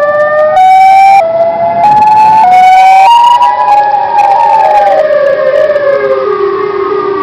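Tornado warning siren recording played backwards and edited. Its loud wailing tone climbs in abrupt steps for about three seconds, then sinks slowly in pitch.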